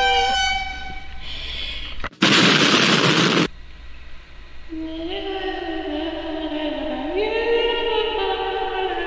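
A loud burst of hiss about two seconds in, lasting over a second, then a long held singing note that steps upward in pitch partway through.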